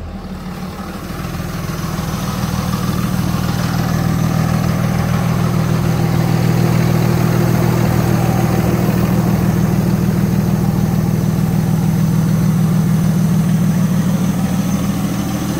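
A 2006 Dodge Ram 3500's 5.9-litre Cummins inline-six turbodiesel idling steadily. It grows louder over the first couple of seconds, then holds an even idle with no revving.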